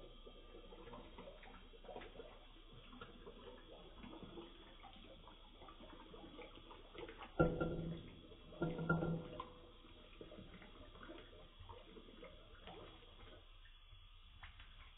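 Thin stream of water from a kitchen tap trickling into a metal cup in a stainless steel sink. About seven and nine seconds in come two louder knocks that ring briefly.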